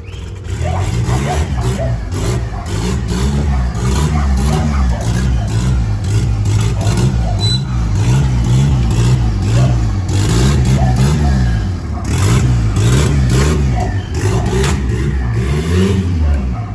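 Turbocharged Chevrolet Corsa pickup engine running loud at low speed while manoeuvring, its pitch rising and falling about once a second in repeated throttle blips.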